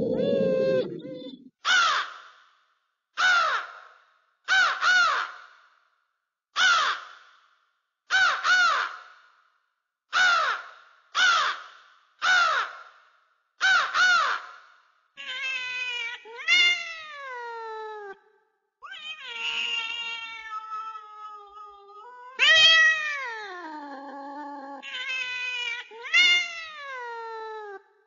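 An animal's meow-like calls: short pitched calls repeated about every second to second and a half, some in pairs, then longer overlapping calls that slide down in pitch, the loudest a little past the middle.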